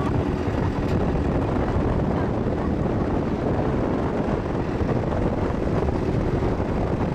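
A truck driving along a road, heard from its open cargo bed: steady engine and road noise with wind on the microphone.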